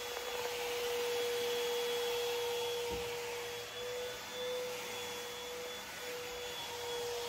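Vacuum cleaner motor running steadily: a constant whine over a hiss.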